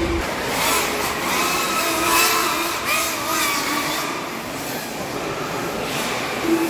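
FPV racing quadcopters' electric motors whining, several pitches bending up and down as the throttle changes, loudest about two seconds in.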